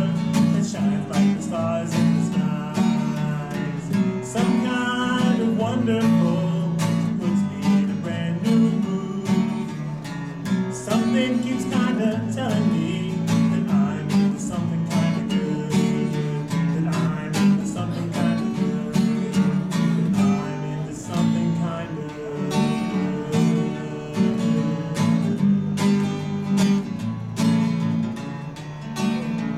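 Acoustic guitar strummed in a steady rhythm, with a man singing over parts of it.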